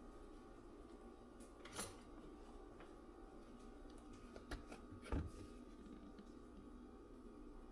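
Quiet room tone with a steady faint hum, broken by a few soft knocks and clicks of objects being handled, the loudest about five seconds in.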